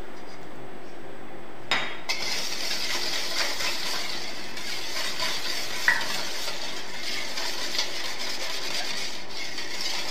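Wire whisk stirring a thin liquid batter of eggs and coconut milk in a stainless steel bowl: a steady swishing with small ticks of the wires against the metal, starting about two seconds in with a click. A brief ringing clink of whisk on bowl comes about six seconds in.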